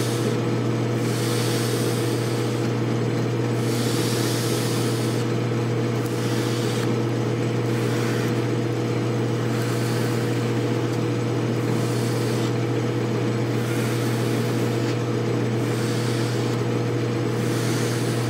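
Atlas 618 lathe running at a steady hum while an abrasive block is pressed by hand against the spinning ball-turned bolt-handle knob. A hiss rises and falls with each stroke, every second or two.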